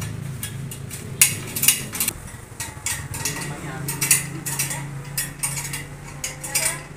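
Scattered light metallic clinks and taps of hand tools and metal parts, irregular and sharp, over a steady low hum.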